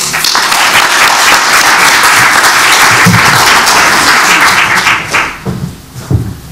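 Audience applauding in a hall, dying away about five seconds in.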